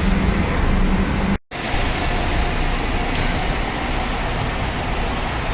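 Road traffic and vehicle engine noise, with a steady low engine hum at first. The sound drops out for a moment about one and a half seconds in, then the even traffic noise carries on.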